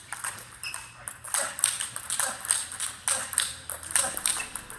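Table tennis balls struck back and forth by several pairs rallying at once: a quick, irregular, overlapping patter of sharp clicks as balls hit rubber paddles and bounce on the tables.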